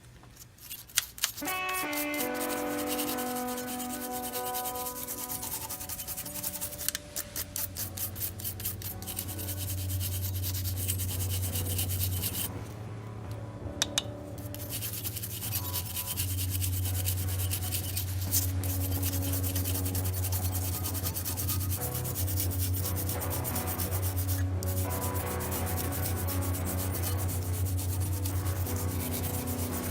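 Steady, rapid rubbing or scrubbing strokes over background music with held notes and a steady bass.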